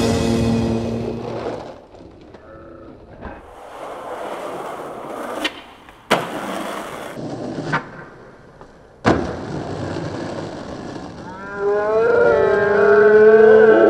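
Skateboard wheels rolling on asphalt, broken by several sharp clacks of the board's tail popping and the board landing. Near the end, louder drawn-out wavering tones come in.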